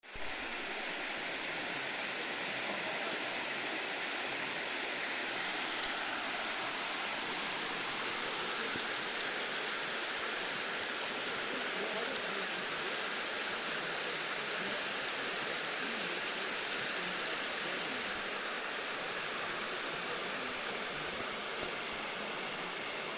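Flowing water rushing steadily, with a few brief clicks about six to eight seconds in.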